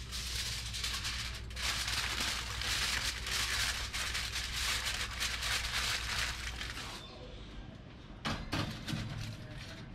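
Aluminium foil crinkling as it is pressed and folded around the rim of a glass baking dish, followed near the end by a few light knocks as the dish is set onto a metal oven rack.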